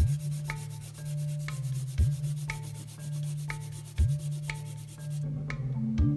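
Pencil eraser scrubbing quickly and evenly over cardstock to lift pencil lines from an inked drawing, stopping abruptly about five seconds in. Background music with a steady beat plays underneath.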